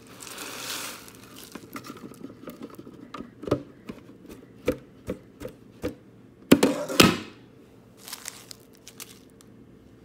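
Dirt and hair spilling out of a Shark vacuum's plastic dust cup onto a rug, followed by a series of sharp clicks and knocks, loudest around the seventh second.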